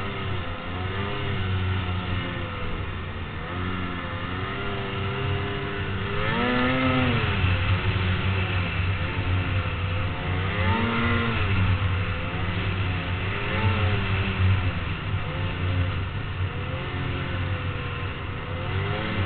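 Engines revving up and down over and over, over a steady low hum, with two louder revs about six and eleven seconds in.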